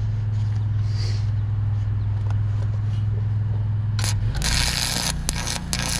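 Arc welder humming steadily at idle; about four seconds in, a fresh stick-welding rod strikes its arc and burns with a loud, continuous crackling sizzle as the weld is laid, while the welder's hum changes under the load.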